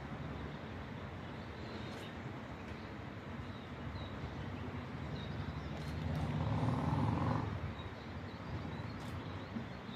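Steady rushing of the Teesta river, with faint short high chirps recurring throughout. About six seconds in, a louder low rumble swells and then fades about a second and a half later.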